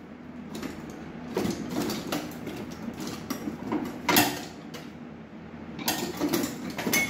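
Metal hand tools clinking and knocking against engine parts while a hose is worked loose: a string of light irregular clicks and scrapes, with a louder knock about four seconds in and a quicker run of clinks near the end.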